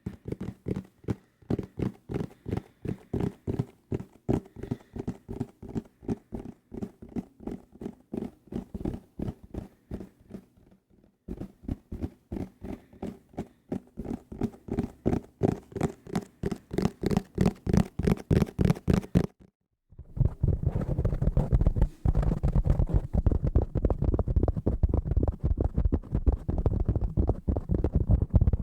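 Fingers tapping fast on hard objects at a desk: an even run of crisp taps with a slight hollow ring, a brief pause about eleven seconds in, then a faster, louder run. After a short break near twenty seconds, a much denser and louder flurry of tapping and scratching follows.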